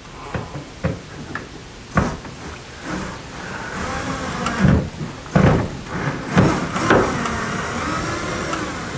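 A few knocks on the wooden cabinet, then from about three seconds in a power drill running in spells with wavering pitch, driving screws through an L bracket into the cabinet top and wall, with several sharp knocks mixed in.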